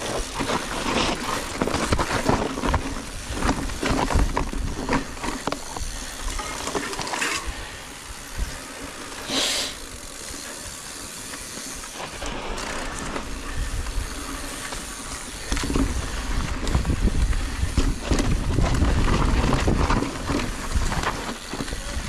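Electric mountain bike ridden over a rough, rocky trail: tyres crunching over stones, with the chain and frame clattering. There is a short hiss about nine and a half seconds in, and the ride grows louder and rougher in the last third.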